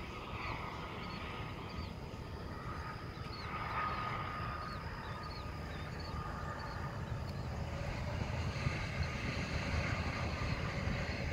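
Steady low rumble of distant highway traffic, swelling a little about four seconds in, with many small high chirps over it.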